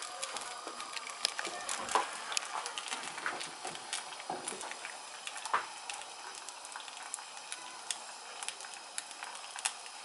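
An egg frying in oil in a cast-iron frying pan: a steady sizzle with scattered crackling pops, a few of them louder.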